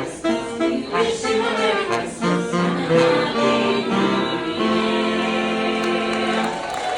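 Choir singing with instrumental backing, the voices holding one long note through the latter part.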